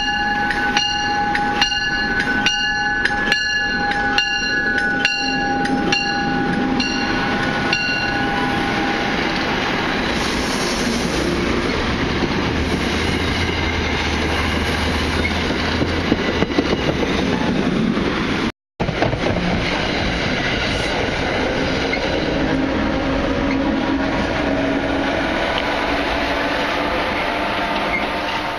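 NJ Transit Comet IV push-pull train pulling out of the station and passing close by. A bell rings about twice a second for the first several seconds, then the wheels clatter and rumble steadily as the cars and the ALP-46A electric locomotive pushing at the rear roll past. The sound cuts out for a moment about two-thirds of the way through.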